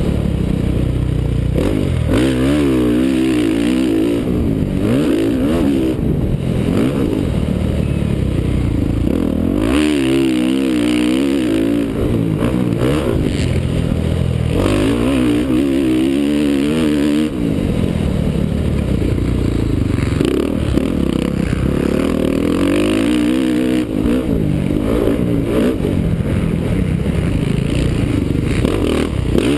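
Honda CRF450R's single-cylinder four-stroke engine revving hard and backing off over and over, heard on board from a helmet camera, as the bike rides through corners and straights.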